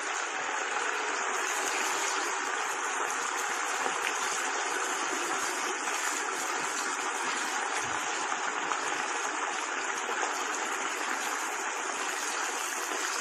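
Boiled taro root (arbi) pieces deep-frying in a large steel kadhai of hot oil: a steady, even sizzle of hard bubbling, the pieces having just gone into the oil.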